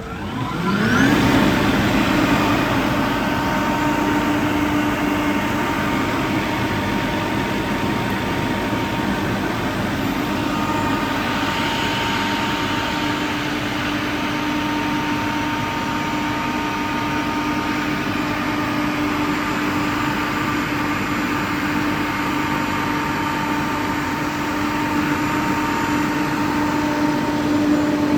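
Kaeser ASK 35 T 22 kW rotary screw air compressor starting up, its motor spinning up with a rising whine over the first second. It then runs steadily under load, building pressure toward 8 bar.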